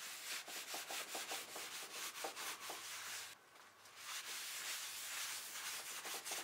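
Alcohol-soaked paper towel rubbed back and forth over a solid walnut tabletop, scrubbing off shellac finish that the denatured alcohol has dissolved. The scrubbing strokes come in quick succession, with a short pause about halfway through.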